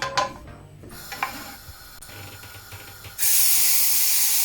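Hot cooking oil in a pan. After a few faint clinks, a loud, steady sizzle starts suddenly about three seconds in, as food hits the oil and begins to fry.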